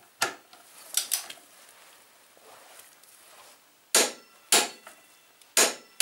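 Click-type torque wrench on a motorcycle's front axle, giving about six sharp metallic clicks at uneven intervals, including a quick double click about a second in. The clicks are the wrench releasing at its 108 setting, the sign that the axle has reached its specified torque.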